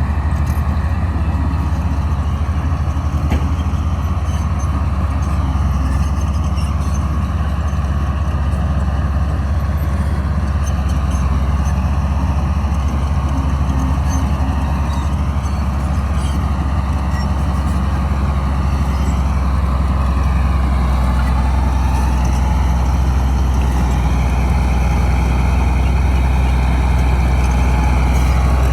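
Bulldozer's diesel engine running steadily under load, a loud low drone that swells slightly near the end.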